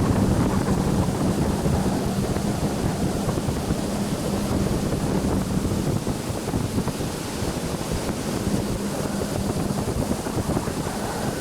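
Yamaha jet ski engine running, with a steady hum that fades into the noise after about three seconds, under heavy wind buffeting on the microphone and rushing water.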